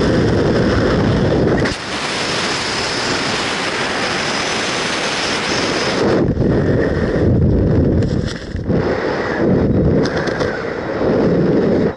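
Wind rushing over a helmet-mounted camera in wingsuit freefall, a loud rumbling buffet that turns to a brighter hiss about two seconds in. In the second half it turns to uneven gusts as the parachute opens and the canopy flies.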